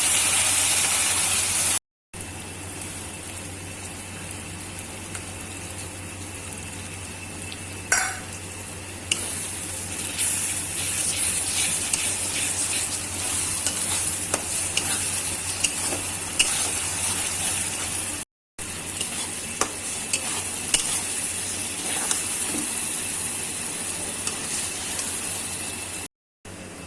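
Chicken pieces sizzling in oil and spices in a pan as chicken kosa is fried down, stirred with a spatula that clicks and scrapes against the pan now and then.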